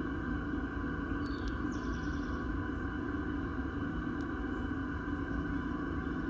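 A steady, unbroken churning noise with a constant hum and low rumble, from an unidentified source under a house.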